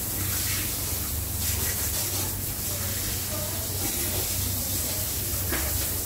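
Water spray nozzle on a hose hissing steadily as fish are rinsed under it, over a constant low hum.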